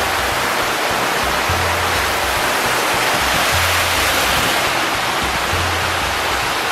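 Background music with a low bass line repeating about every two seconds, over a steady rush of water like a waterfall or fast stream.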